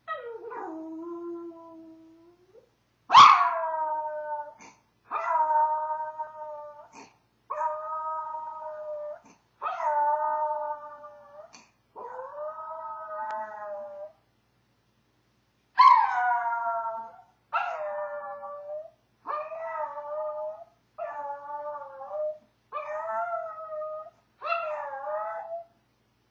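A Maltese dog howling: about a dozen drawn-out howls of a second or two each, with a short pause midway, the first one sliding down in pitch. The howling is a sign of separation anxiety.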